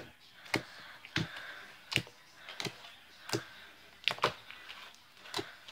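Homemade slime being worked by hand, giving a series of sharp clicking pops, about seven in all, spaced roughly two-thirds of a second apart.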